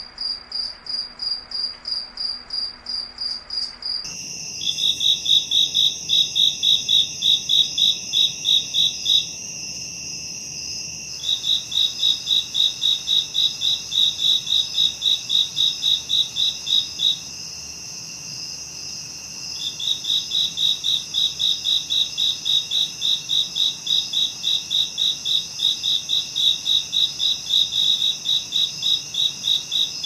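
Crickets chirping: a steady high trill under trains of loud, evenly spaced chirps that run for several seconds, pause and start again. The chorus changes abruptly about four seconds in, from one chirping pattern to another.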